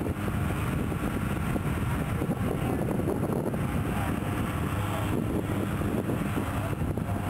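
A steady, even engine drone with wind noise on the microphone.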